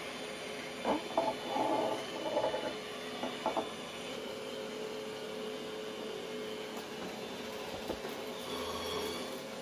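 Roborock S7 MaxV Ultra robot vacuum's motors running with a steady whir as it drives onto its base station, with a few light knocks and scrapes about one to three and a half seconds in.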